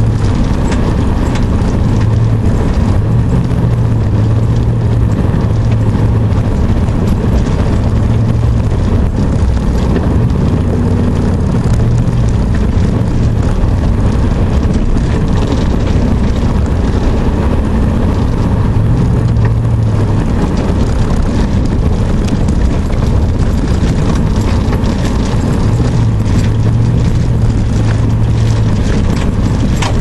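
Truck engine running and tyre and road noise heard from inside the cab while driving along a muddy, rutted dirt road. The low engine note swells and fades every few seconds.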